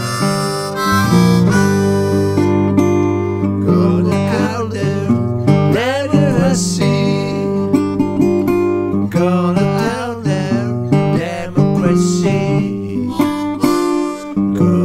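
Instrumental background music: acoustic guitar with harmonica, some notes bending in pitch.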